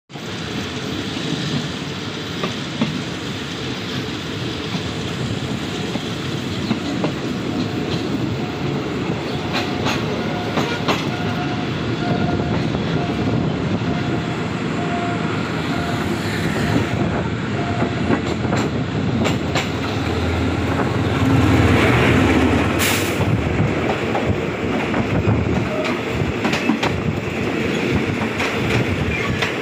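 Passenger train running, heard from an open window: a steady rumble and rush of air, with the clickety-clack of the wheels over the rail joints and scattered sharp clicks. The sound grows louder for a couple of seconds about two-thirds of the way through.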